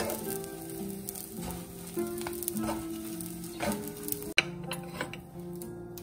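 Small dried anchovies sizzling in oil in a nonstick frying pan, stirred and scraped around with a wooden spatula; the sizzling and scraping cut off about four seconds in.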